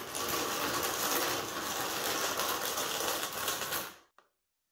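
Plastic wash basin dragged across a concrete floor, a continuous scraping rasp that stops about four seconds in, followed by a single light tick.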